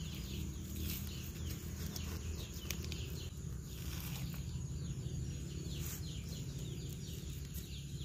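Small birds chirping, a rapid run of short falling chirps, over a steady low rumble of outdoor ambience. A few faint clicks come from a knife cutting open a charred, fire-roasted wax gourd.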